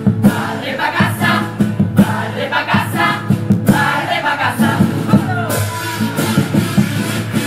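Music with a steady beat, with a group of voices singing.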